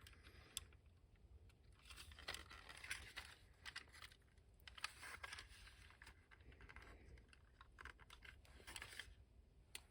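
Faint, scattered clicks and scraping of hard plastic toy parts being handled as the cannon is fitted back onto the G.I. Joe A.W.E. Striker's repaired gun mount.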